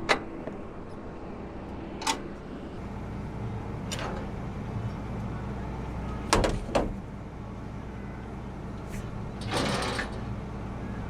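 John Deere T670i combine harvester running steadily, with a series of sharp knocks and clunks every couple of seconds and a short hissing rush near the end.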